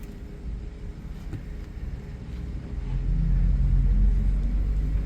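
Pickup truck driving, heard from the open truck bed: a steady low engine and road rumble that swells louder about three seconds in.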